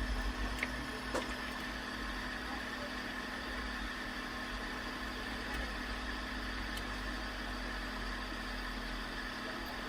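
Hot-air heat gun running steadily: an even rush of blown air with a constant fan hum and a steady high whine, heating the circuit board to melt the solder on a tablet's charging port. A couple of light clicks in the first second or so.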